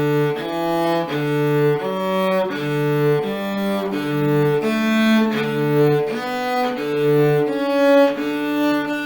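Solo cello bowing a beginner's interval exercise, about two notes a second. A low open-string note keeps returning between notes that step up and back down. A longer note is held near the end.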